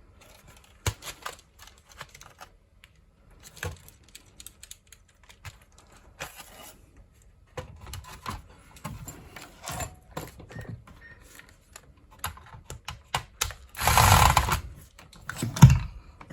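Parts of a disassembled computer keyboard being handled: scattered plastic clicks and clacks, with a louder scraping rustle about fourteen seconds in and a thump just after.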